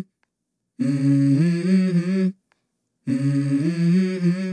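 A short hummed vocal phrase played twice, each time cut off into dead silence, like a looped music sample; the same phrase starts again near the end.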